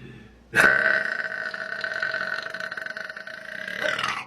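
A single long, drawn-out burp. It starts abruptly about half a second in and holds one steady pitch for about three and a half seconds before stopping.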